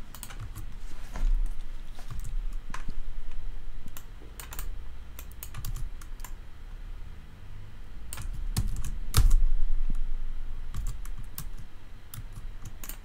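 Typing on a computer keyboard: irregular keystrokes, with a run of louder key presses about eight to nine seconds in.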